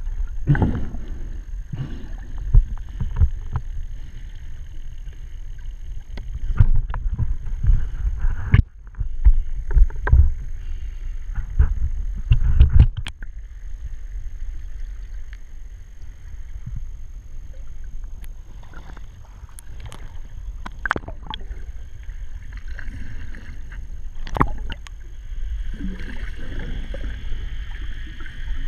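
Underwater sound picked up by a camera in a waterproof housing: a low, muffled rush of water moving past, with scattered sharp clicks and knocks. The rush is stronger in the first half and settles lower after that.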